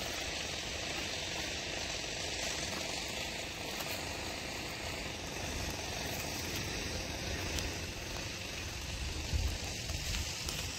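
Steady outdoor noise of wind on the microphone over a low, uneven rumble, with a slightly stronger gust of rumble near the end.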